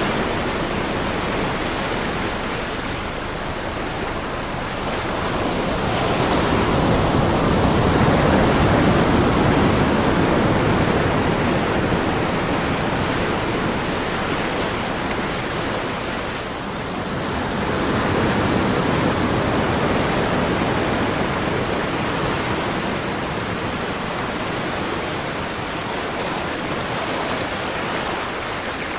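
Ocean surf: a continuous rush of waves that swells twice, about a third of the way in and again about two-thirds in, easing off between.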